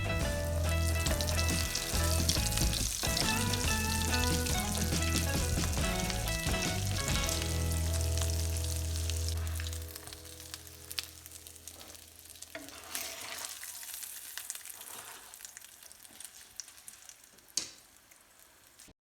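Pies frying in hot sunflower oil in a pan: a steady sizzle with scattered crackles and a sharp pop near the end. Background music plays over it for the first half, then fades out.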